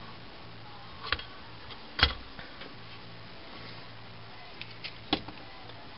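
A few light knocks and clicks as a router in a perforated sheet-metal case is handled and set down on a wooden desk, the sharpest about 2 seconds in and another near the end, over a faint steady low hum.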